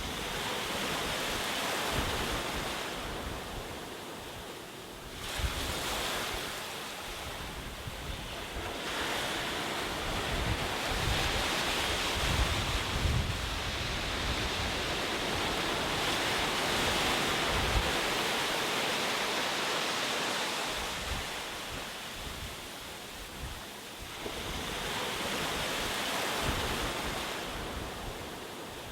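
Ocean waves breaking and washing on a shore: a steady rush of surf that swells and ebbs several times, with the longest and loudest surge through the middle.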